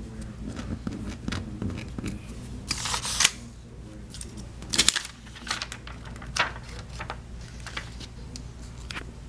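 Scattered sharp clicks and brief rustling noises over a steady low hum. The loudest bursts come about three seconds in and about five seconds in.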